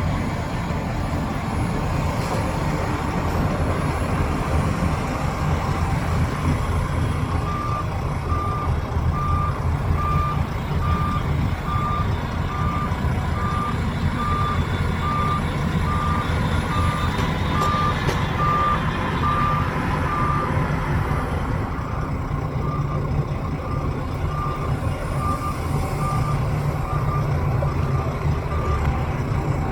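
Heavy diesel earthmoving machinery running with a steady low rumble, and a reversing alarm that starts beeping several seconds in, at a steady pace of roughly one beep a second, growing fainter over the last third.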